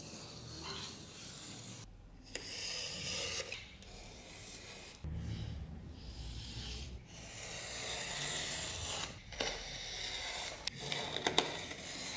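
Tolsen snap-off utility knife cutting thick leather along a steel ruler: a series of drawn cutting strokes, each a second or two long with short gaps, and a few sharp clicks near the end.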